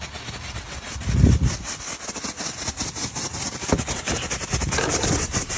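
Dominator firework strobe popping: a rapid, irregular crackle of sharp pops, several a second. A dull low thump comes about a second in.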